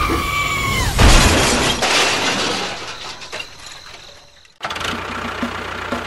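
A loud sudden crash about a second in, with a long noisy tail that fades away over about three seconds. Just before it, a held whistle-like tone slides down in pitch. After a sudden cut near the end, a low rhythmic pulsing starts.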